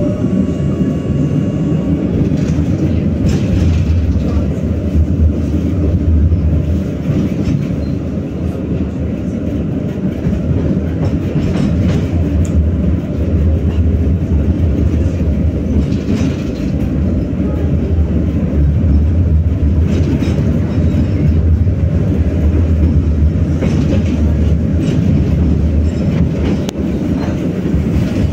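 BKM-60102 tram running along the line: a steady low rumble of wheels on rails, with a sharp click every few seconds as the wheels pass over rail joints.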